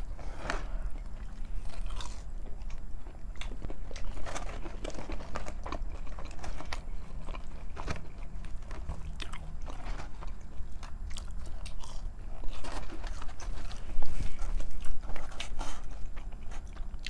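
Two people chewing and biting into breaded fried chicken fingers, fries and toast, close to the microphone, with many short crunchy bites. The loudest bites come near the end.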